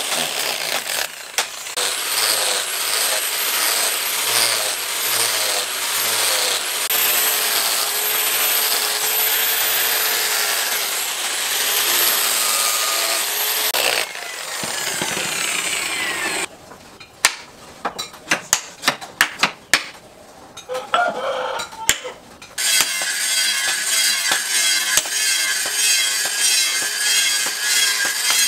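Angle grinder with a sanding pad sanding a wooden axe handle, its motor whine wavering slightly as it is pressed against the wood. About halfway through, the grinding stops and a run of sharp hammer knocks follows; near the end a different steady, patterned sound takes over.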